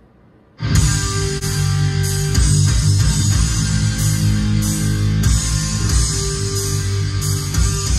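Music starts suddenly about a second in and plays loudly with heavy bass, streamed over Bluetooth from a phone through a Yamaha MS60S powered monitor speaker. It is the playback test of the speaker just after its 8-inch driver's worn-out surround was replaced, and the speaker plays cleanly.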